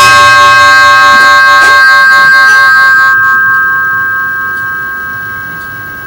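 Brass ship's bell engraved ALICE 1954, struck once by its clapper, ringing on in a clear steady tone that slowly fades. Its higher overtones die away after about three seconds, leaving two main tones sounding.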